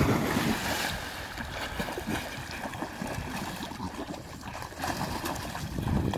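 A Belgian Malinois leaps from the bank into a canal with a loud splash, then water splashes and sloshes as the dogs swim and wade. A second swell of splashing comes near the end.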